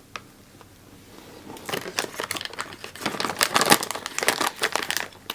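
Plastic wrapper of a small packaged snack waffle crinkling as it is handled and opened, starting about a second and a half in and going on in a dense run of crackles.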